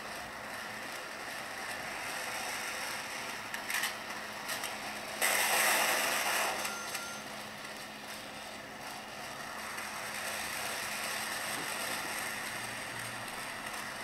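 Sound effects of a first-person shooter game playing on a tablet: rattling gunfire clicks, with a louder stretch of noisy firing about five seconds in that lasts a second or two.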